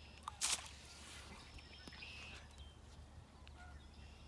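A brief sharp noise about half a second in, the loudest thing here, followed by birds calling faintly in short whistled notes over a steady low outdoor hum.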